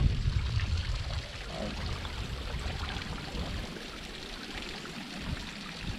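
Spring water running and trickling, a steady rushing hiss, with a low rumble that dies away in the first second.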